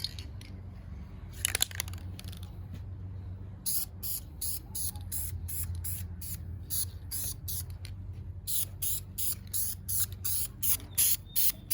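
Spray hissing in short repeated bursts, about three a second, starting about four seconds in, over a steady low hum.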